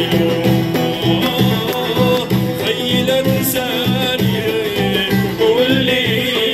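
Live band music over a PA system: a steady low beat under keyboard, acoustic guitar and congas, with a singing voice.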